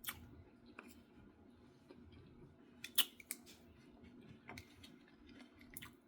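Quiet eating sounds: a few scattered sharp clicks and taps, the loudest about three seconds in, while sardines are eaten from the can.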